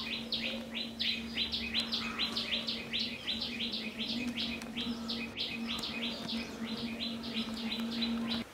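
A bird calling a fast run of short falling notes, about five a second, over a steady low hum; both cut off suddenly at the end.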